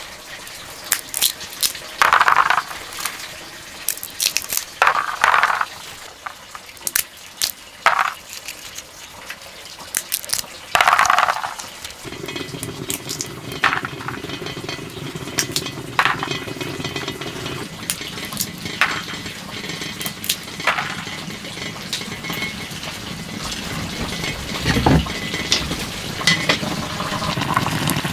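Dry peanut shells cracked open by hand, a scatter of sharp snaps and short crackles. About twelve seconds in it gives way to a wood fire crackling under a pot, with a steady low bubbling, rice coming to the boil, and a single thump a few seconds before the end.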